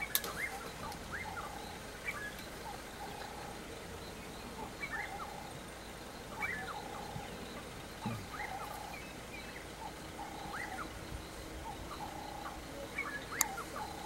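Fork-tailed drongo calling over and over, short rising chirps mixed with brief flat notes every second or two: scolding a leopard. A single sharp click near the end.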